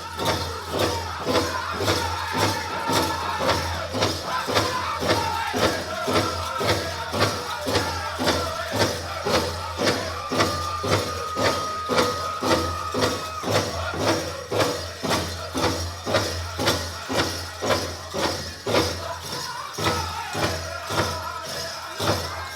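Powwow drum group singing over a big drum struck in a steady beat, about two strokes a second. High sung voices rise and fall above the drum, with one long held note about halfway through.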